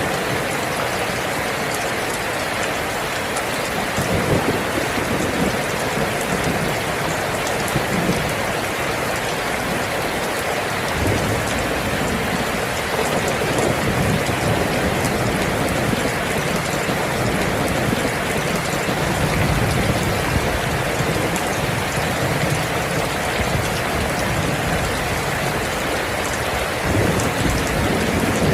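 Steady heavy rain, with low rolling thunder rumbling at times and swelling louder near the end.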